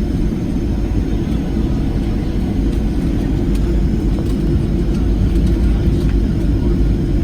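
Steady cabin noise of a Boeing 737-700 in flight: a low drone from its CFM56 jet engines and the airflow over the fuselage, heard from inside the passenger cabin.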